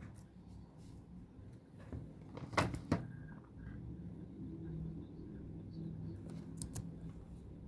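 A few short clicks and knocks, the loudest cluster about two and a half seconds in and a sharper pair near the end, over a steady low hum.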